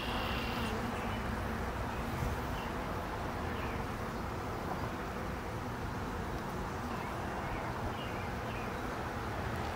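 Honeybees buzzing steadily in a dense mass around an opened hive.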